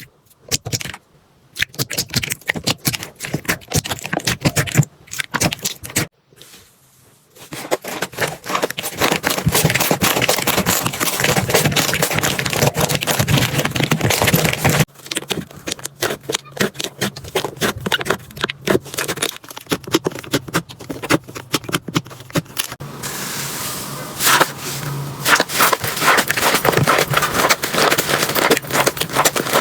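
Slime being squished, poked and stretched by hand close to the microphone: dense runs of sticky clicks and crackles, breaking off briefly a few times.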